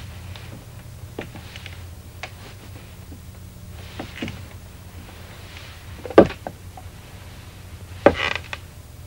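A few scattered knocks and clicks over a steady low electrical hum, with two sharper, louder knocks about six and eight seconds in.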